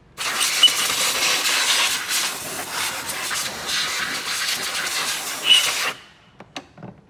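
Loud steady hiss that starts suddenly and cuts off after about six seconds.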